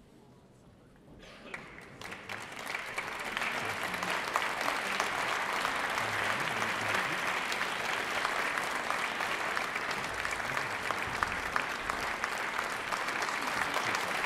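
Concert audience applauding the conductor as he walks on. The clapping starts about a second in, swells over the next few seconds, then holds steady and dense.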